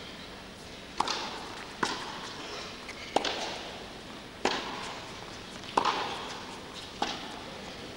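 Tennis rally on an indoor carpet court: six sharp pops of the ball off the rackets and the court, roughly one every second or so, each with a short echo from the hall.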